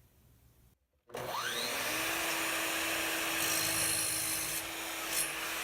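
An electric power tool starts up, its whine rising as the motor spins up, then runs steadily as it cuts or sands wood.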